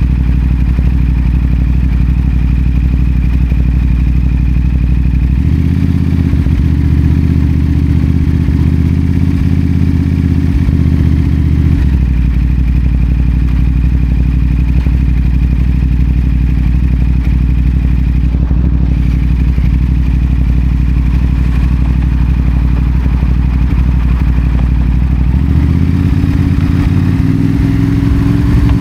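CFMoto 450SR parallel-twin engine running through a Yoshimura AT2 slip-on exhaust while riding. The note steps up about five seconds in, drops back about twelve seconds in, and rises again near the end.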